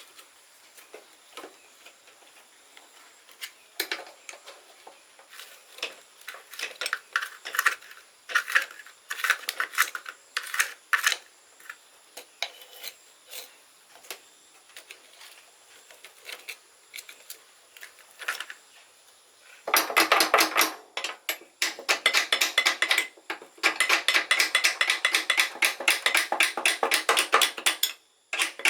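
Metal tools and small motorcycle parts clinking and tapping in scattered knocks, then a fast, steady run of rapid clicks for the last several seconds.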